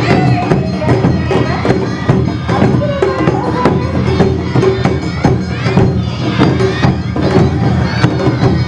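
Awa Odori festival music from a marching band: drums and bells beat a quick, steady rhythm while bamboo flutes play a sustained tune over it. Crowd voices mix in.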